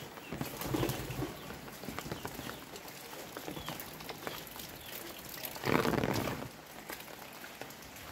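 Outdoor ambience of a walk on wet ground after rain: footsteps and scattered dripping ticks, with a few short bird chirps. A louder rush of noise lasting under a second comes about three-quarters through.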